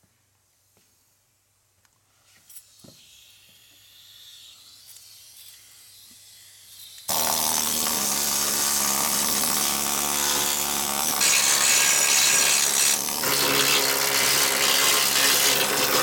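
A few faint clicks of handling, then about seven seconds in a hose-fed power tool starts suddenly and runs loudly and steadily, stripping old undercoating off a car's underbody.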